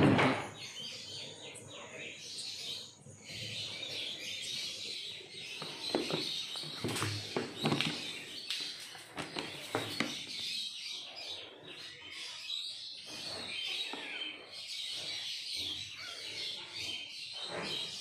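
Sparrows chirping over and over, with scattered short knocks and rustles.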